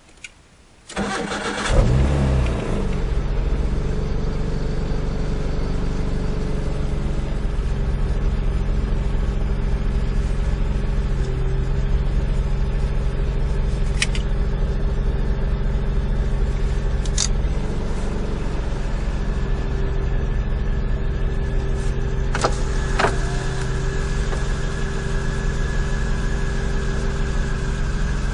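Nissan Micra 1.3-litre petrol engine starting about a second in, then settling into a steady idle. A few sharp clicks sound over the idle later on.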